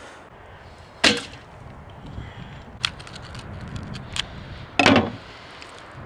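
Handling noises from gutting small shemaya fish by hand: two sharp knocks, about a second in and near the end, with a few lighter clicks between.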